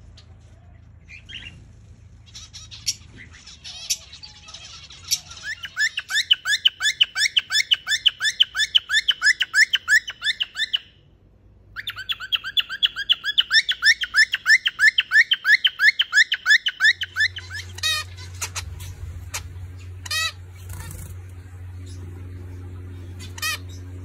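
Pet birds giving long runs of rapid, repeated short calls, about six a second, broken by a short silence near the middle. In the last part a few single chirps sound over a low hum.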